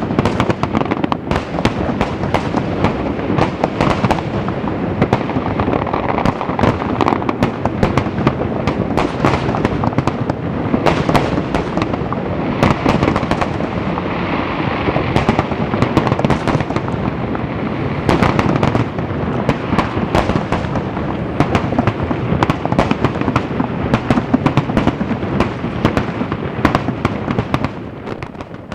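Aerial fireworks display: a dense, unbroken barrage of booming shell bursts and crackling, many overlapping bursts every second, easing slightly near the end.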